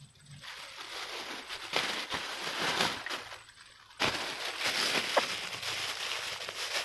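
Rustling, crackling noise in two stretches, the second starting abruptly about four seconds in.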